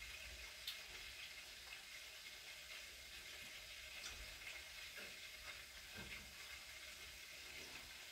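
Faint sizzling of food frying in a pan, with a few light clicks.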